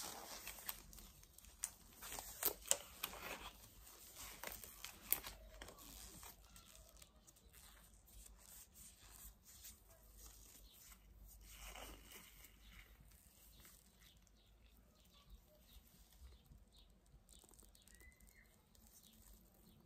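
Latex glove being pulled on and stretched over the hand: rubbery rustling and stretching with a few sharp snaps in the first five seconds, then fainter rubbing as the glove is smoothed over the fingers.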